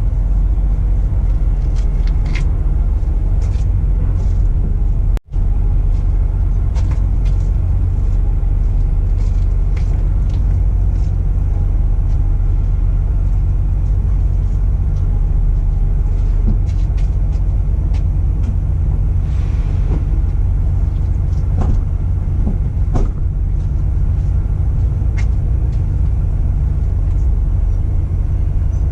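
Steady low rumble with scattered light clicks and taps from hand work on the serpentine belt and pulleys. The sound cuts out for an instant about five seconds in.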